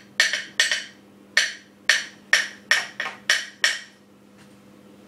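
Spoon knocking against the side of a mixing bowl while stirring cookie dough: about nine sharp, ringing clacks in quick uneven succession over three and a half seconds, then they stop.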